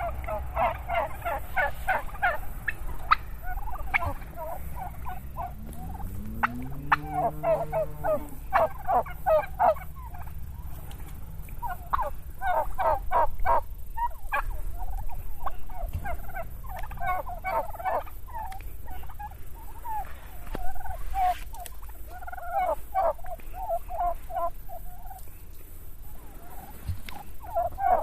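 Flock of domestic turkeys gobbling, several toms giving rolling gobbles one after another and overlapping, with short lulls between runs.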